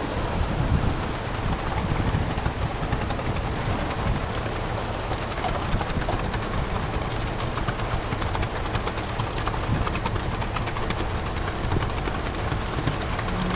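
Heavy construction machine running: a steady diesel drone with continuous rattling and clanking.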